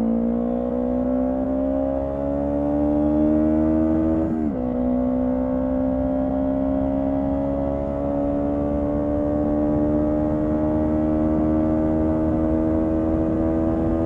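Honda CB125T's air-cooled 125 cc parallel-twin engine pulling under way, its pitch rising slowly, with one upshift about four and a half seconds in that drops the revs before it pulls up again. The engine is running with its air cleaner removed, and running well.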